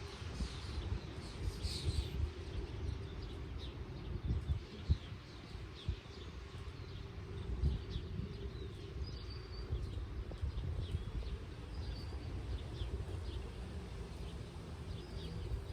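Small birds chirping on and off, many short calls, over a constant low rumble.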